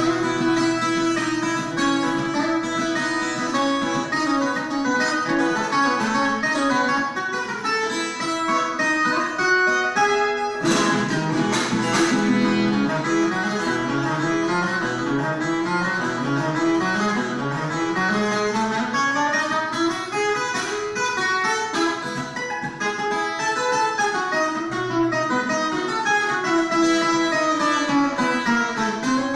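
Viola caipira, the Brazilian ten-string folk guitar, played with plucked runs of notes that climb and fall, with a sharp strummed stroke about ten seconds in.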